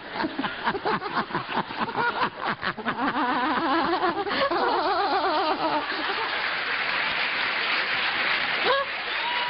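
Loud laughter in quick, rapid pulses with a wavering voice, followed by studio audience laughter and applause in the second half.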